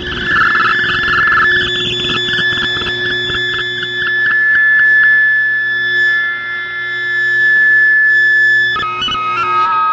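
Shortwave radio reception on 5910 kHz: steady electronic tones and a pulsing, warbling tone over static hiss, switching about nine seconds in to a quick run of stepped tones.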